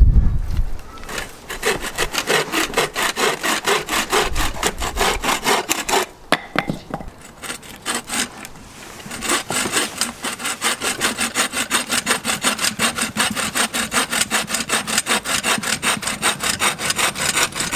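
Bow saw cutting through a birch pole with fast, even back-and-forth strokes. The sawing stops about six seconds in, a few light knocks follow, and it starts again about three seconds later, running steadily until just before the end.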